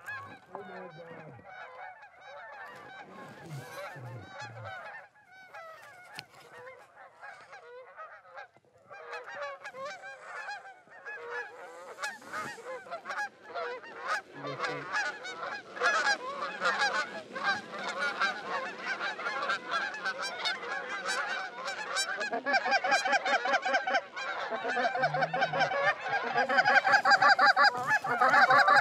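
A flock of Canada geese honking, many overlapping calls that grow louder and denser toward the end.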